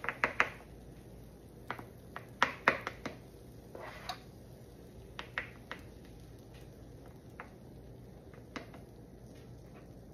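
A black plastic spoon tapping and scraping against a waffle maker's plates and a mixing bowl as thick batter is ladled in and spread. The sound is a string of scattered sharp clicks and taps, with a longer scrape about four seconds in.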